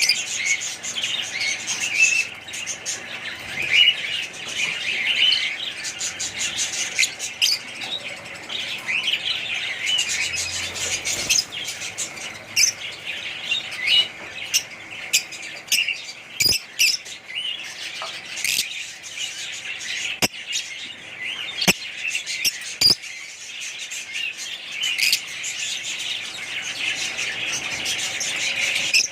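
A flock of small pet parrots chirping and chattering continuously, many calls overlapping. A few sharp clicks or taps cut through the chatter partway through.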